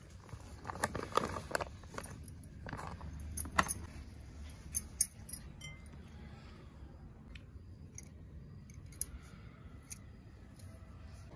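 A plastic mix packet crinkles as the dry gulab jamun mix is shaken out into a glass bowl. A hand then rubs and crumbles the dry mix against the bowl, with metal bangles clinking. The rustling is busiest in the first half, with a few sharp clicks a few seconds in, then sparser clicks.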